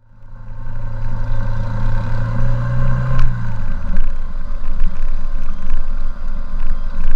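Motorcycle engine running while riding, under a steady rush of road and wind noise. The engine's low note climbs a little, then drops away about three and a half seconds in.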